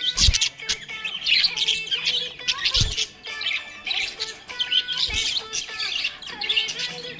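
Budgerigars chirping in quick, busy bursts, with three dull low thumps near the start, about three seconds in and about five seconds in.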